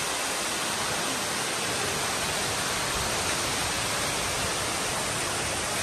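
Indoor fountain's column of water falling from the ceiling dome into a round basin: a steady, noisy rush of splashing water.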